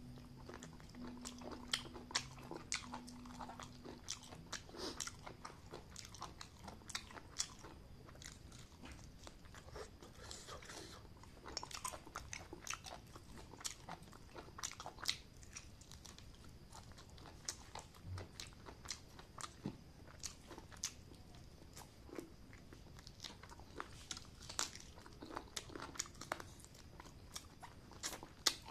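Close-up eating sounds: irregular crunchy bites, wet clicks and chewing of a curried chicken drumstick with rice, eaten by hand.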